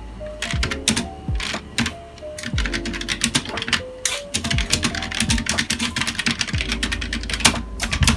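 Typing on a computer keyboard: clacking keystrokes, scattered for the first few seconds, then quick and continuous, over instrumental background music.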